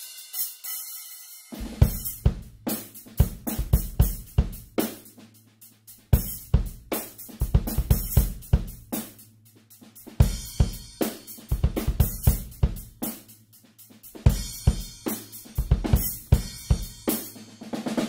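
Drum kit played as a groove with Centent Whisper Series perforated low-volume cymbals (14-inch hi-hats, 20-inch ride, 16- and 18-inch crashes), the drums damped with towels. For about the first second and a half only cymbals are heard; then kick, snare and cymbals play together, the drums dropping out briefly about every four seconds.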